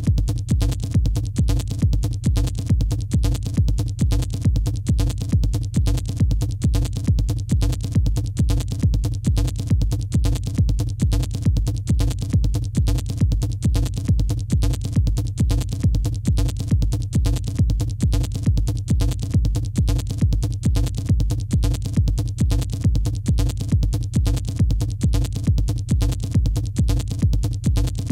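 Electronic dance music track: a steady, evenly repeating kick drum beat over sustained low bass tones, with regular hi-hat ticks on top.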